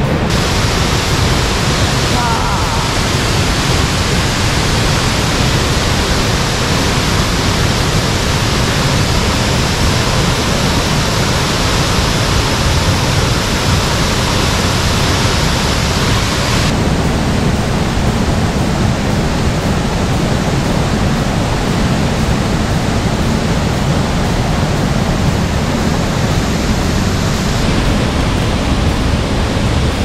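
Waterfall and rushing white water in a rocky gorge: a loud, steady rush of water. Its character changes abruptly about two seconds in, a little past halfway, and near the end.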